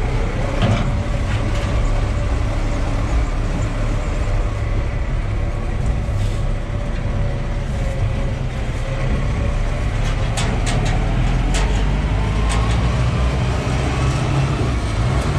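Engine of a caged feeding truck running steadily, heard from inside its metal cage, with a few sharp clicks and rattles in the second half.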